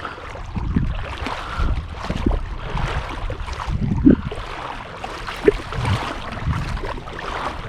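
Shallow river water splashing and sloshing as a hooked musky is pulled up onto the bank, with irregular rumbling from wind or handling on the microphone.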